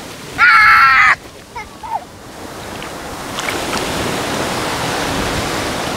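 Shallow surf washing over the sand, the foamy wash swelling over a couple of seconds and then running steadily. Near the start comes a short, loud, high-pitched cry from a child's voice.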